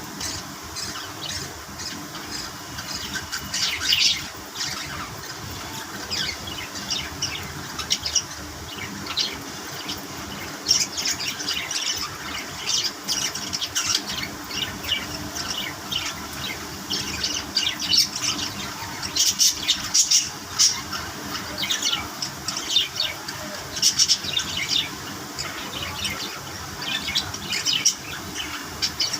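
Budgerigars chirping and squawking in short, high calls, with louder flurries every few seconds.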